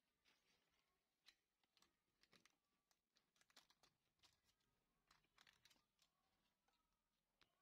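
Near silence with faint, scattered clicks and scratches, typical of handwork on an LCD panel during a polarizer film replacement.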